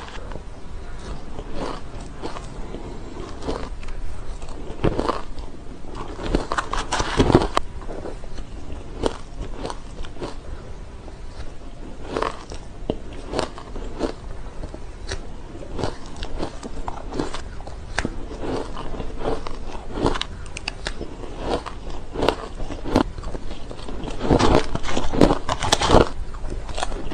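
Green matcha shaved ice being crunched and chewed, a steady run of short crisp bites with a louder flurry of crunches near the end.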